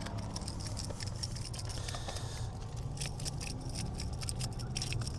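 Irregular small clicks and patters of a freshly landed small tailor being handled and unhooked, the lure's treble hooks rattling against it.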